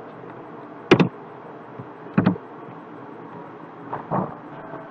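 Computer keyboard keys pressed three separate times, sharp clicks spaced a second or more apart, over a steady low hiss.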